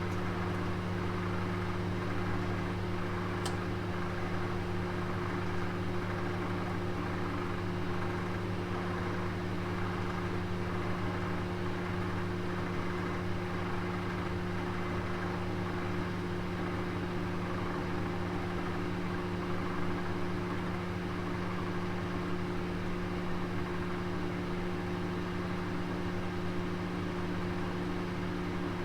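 Oven running with a roast cooking inside: a steady low hum over an even rushing noise, with a faint single tick about three and a half seconds in.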